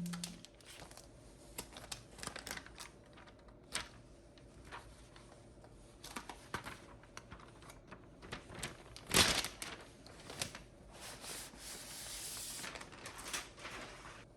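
Unboxing handling sounds: scattered clicks and taps, one sharper knock about nine seconds in, and a stretch of papery rustling near the end.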